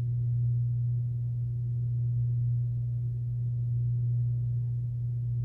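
A steady low hum, unchanging, with no other sound over it.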